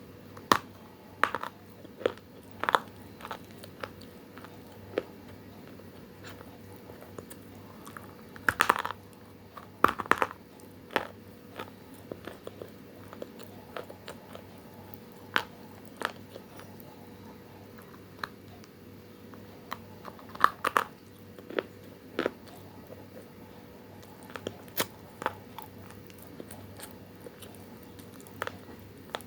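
Dry multani mitti (Fuller's earth clay) being bitten and chewed: irregular sharp crunches with pauses between them, and a few louder, denser bursts of crunching, over a faint steady hum.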